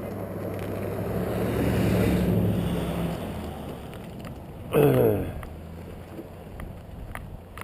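A vehicle passing by: engine hum and road noise swelling to a peak about two seconds in, then fading. A short voice-like sound comes about five seconds in, followed by faint ticks.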